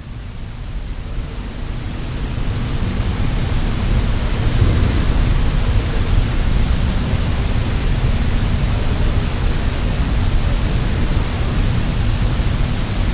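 Steady broad hiss with a faint low hum, swelling over the first few seconds and then holding steady.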